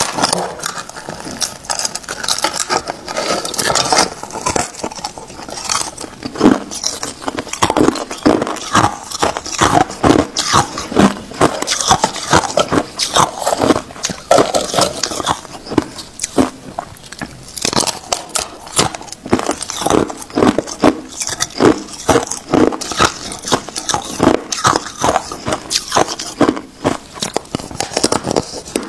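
Hard ice being bitten and crunched: thin sheets of clear ice cracking between the teeth and snapping in the hands, a dense, irregular run of sharp cracks and crackles.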